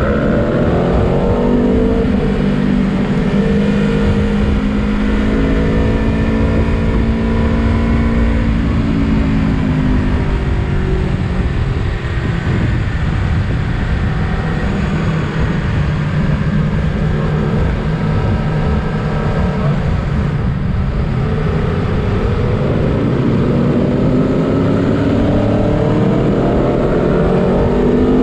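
Aprilia Tuono V4 Factory's V4 engine running at road speed, heard from on board. Its pitch holds steady, eases off about nine seconds in, then climbs again as the bike accelerates near the end.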